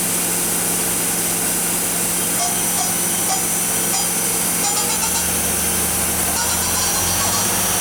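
Mori Seiki ZT-1500Y CNC lathe's spindle one spinning unloaded in a steady whirr with a high hiss, its speed being raised from about 2000 RPM toward 3000 RPM. A lower hum joins about five seconds in.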